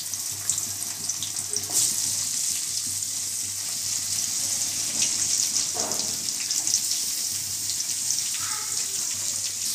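Sliced onions sizzling in hot sesame oil in an aluminium kadai: a steady high hiss with small crackles spattering through it.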